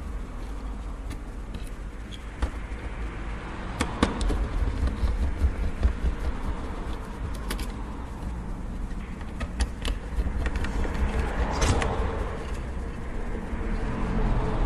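Scattered small clicks and light scraping from a small Phillips screwdriver working tiny screws out of a PS3 Blu-ray drive's circuit board, and the drive being handled, over a steady low hum.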